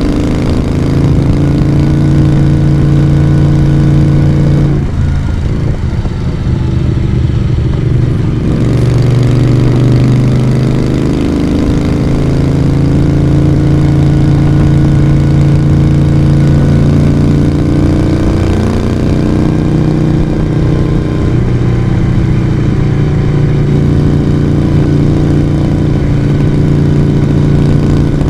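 Moto Guzzi V35's V-twin engine and exhaust running under way. About five seconds in the note eases off for a few seconds, then the engine pulls again, stepping in pitch as the speed changes.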